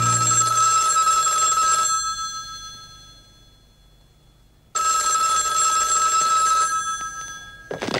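A telephone bell rings twice on a song recording, each ring about two seconds long with a pause between. A short clatter of clicks comes near the end, as the receiver is picked up.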